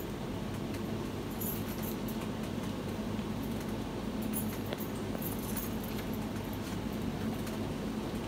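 Steady low hum of shop room tone, with a few faint clicks.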